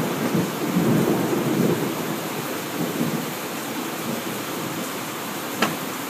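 Heavy rain falling on a workshop roof as a steady hiss, with a low rumble of thunder in the first couple of seconds. A single sharp wooden knock sounds near the end as a frame part is set into the assembly jig.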